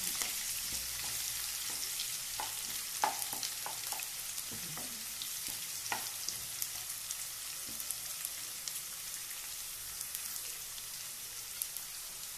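Chopped onion, green chilli and cumin seeds sizzling in hot oil in a deep non-stick pan: a steady high sizzle with scattered pops. A wooden spatula stirs them, knocking against the pan now and then.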